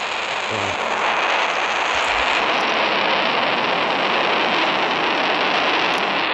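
A steady, loud rushing noise with no distinct events.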